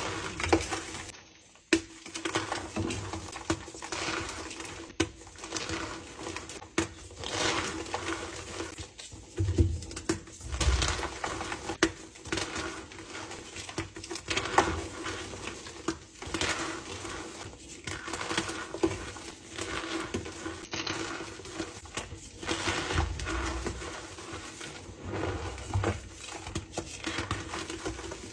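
Blocks of dyed gym chalk crushed and crumbled by hand, giving repeated crunchy, crackly bursts with sharp snaps as pieces break. A faint steady hum underneath.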